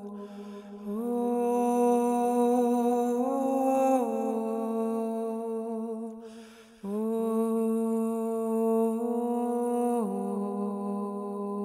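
A woman sings long wordless vowel notes into a microphone in two held phrases, each starting after an audible breath, the second about seven seconds in, with the pitch stepping up and then back down. Underneath, a steady held vocal layer carries on without a break, played back by a Max 8 looper.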